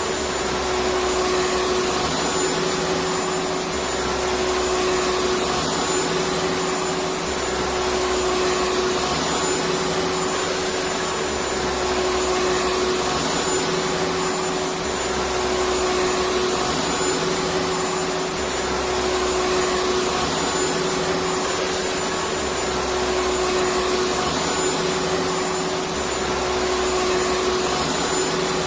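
Vacuum cleaner running steadily, a continuous rushing noise with a steady motor hum and a faint high whine.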